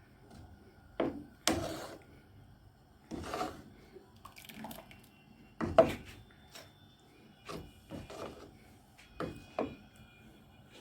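Scattered knocks, clatters and short scrapes of cookware and utensils being handled in a kitchen. The loudest knock comes about six seconds in.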